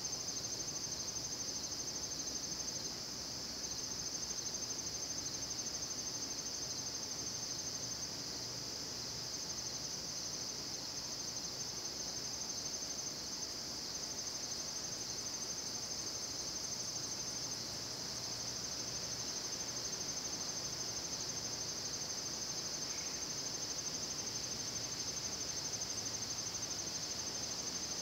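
Night insects, crickets or the like, trilling in a steady, continuous high-pitched chorus.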